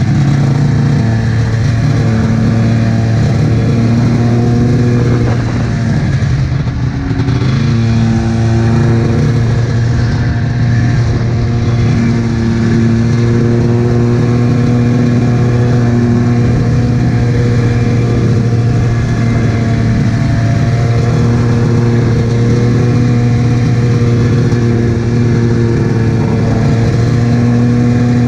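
Arctic Cat F7 snowmobile's two-stroke twin engine running at trail speed through an aftermarket D&D expansion pipe and Jaws silencer can. About six seconds in the revs drop briefly, then climb back and hold steady.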